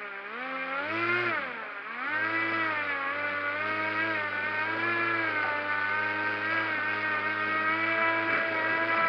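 Radio-controlled airboat's small electric ducted fan running, a steady whine whose pitch follows the throttle. It surges about a second in, drops briefly, then runs up again and holds with a slight waver.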